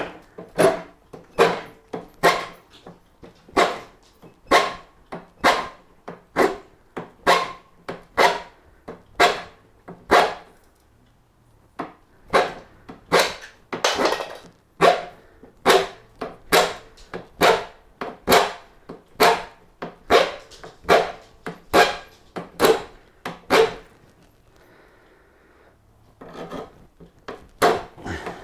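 Hand file rasping back a damaged edge on a mower handle part, in steady even strokes about two a second, with two short pauses.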